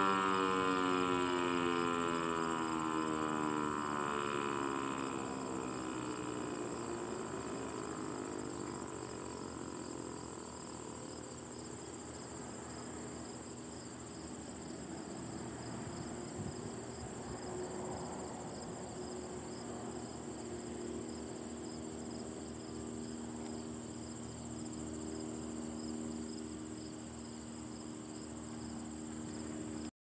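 ASC T-112 electronic warning siren's tone gliding down in pitch and fading out over the first few seconds as the test ends. Steady high-pitched insect trilling carries on after it, with a faint steady low tone in the second half.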